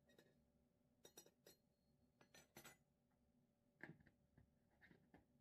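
Faint clinks and taps of a metal spoon, a scattered series of light strikes with a duller knock about four seconds in, while wet cat food is being served.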